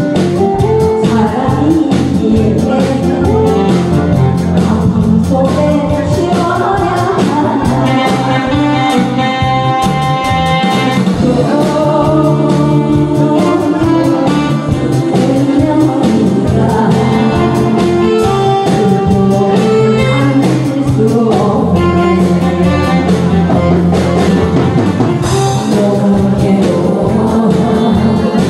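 A woman singing a Korean song into a handheld microphone over an instrumental karaoke backing track, amplified through a PA system.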